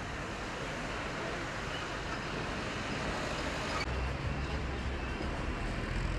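Street traffic noise: a steady wash of passing cars. About four seconds in the background changes abruptly to a steadier low rumble.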